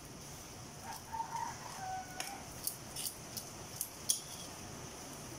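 Wooden spatula and metal fork scraping and clinking against a steel wok while tossing rice noodles, with several sharp clinks in the second half. A few short pitched calls sound about a second in.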